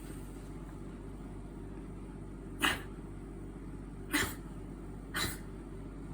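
Bichon Frise dog giving three short, sharp snorts, each well under half a second and a second or so apart, over a steady low hum.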